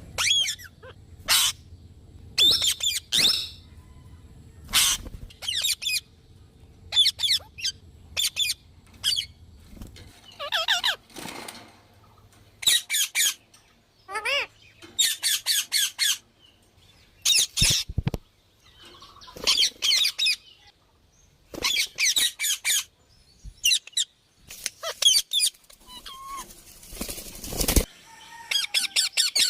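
Parrot calling in short bouts of rapid, repeated squawking and chattering notes, with pauses of a second or two between bouts.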